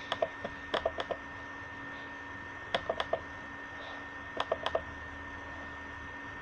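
Computer mouse double-clicking: four quick groups of sharp clicks in the first five seconds, over a steady faint electrical whine.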